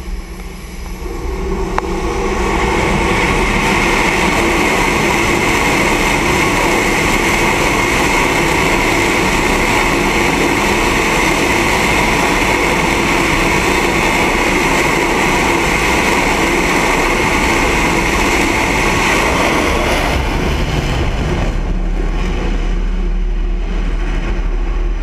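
F/A-18 fighter jet engines run up to full power for a catapult launch: a loud, steady jet roar with a high whine, building about two seconds in. About twenty seconds in the whine falls away as the catapult fires and the jet leaves, leaving a low rumble.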